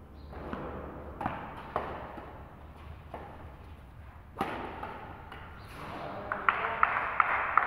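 Badminton rally: sharp racket-on-shuttlecock hits a second or more apart, the loudest an overhead smash about four seconds in. Near the end comes a short burst of clapping.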